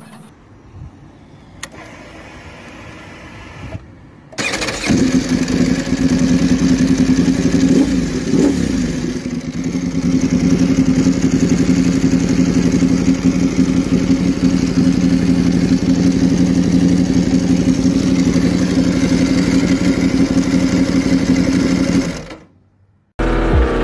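Ducati Desmosedici RR's 90-degree V4 motorcycle engine being started: a few seconds of quieter starter cranking, then it fires about four seconds in and settles into a loud, steady idle. The sound cuts off abruptly near the end.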